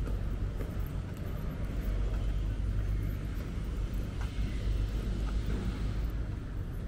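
Outdoor ambience on foot: a steady low rumble with a fainter hiss above it that swells a little about four seconds in, and a few faint ticks.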